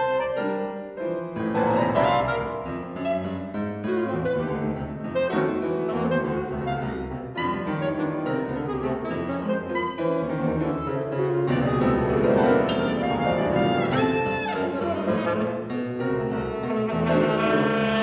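Alto saxophone and piano playing together in a busy, densely packed classical passage, with no pauses.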